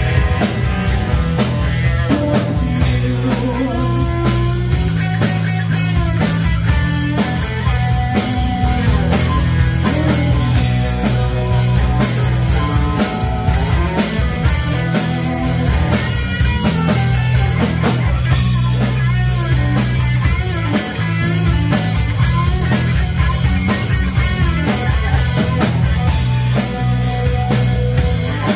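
Live rock band playing: electric guitar through an amplifier, electric bass guitar and a drum kit, continuous and loud.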